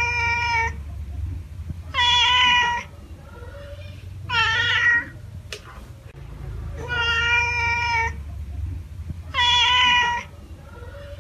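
Domestic cat meowing five times, roughly every two and a half seconds, each meow under a second long. A low steady rumble runs underneath.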